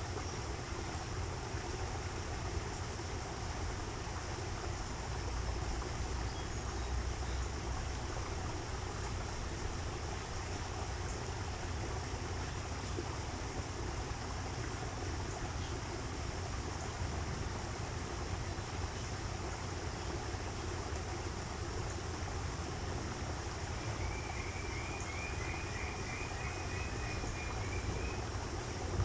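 Steady rush of running water from a small aviary stream. Near the end, a bird calls a quick run of repeated short notes, about two a second.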